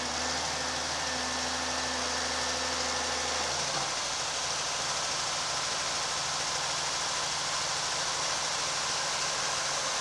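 Engine of a 1965 Oliver 1550 industrial loader/backhoe running steadily while the backhoe is worked. A low hum drops out about three and a half seconds in.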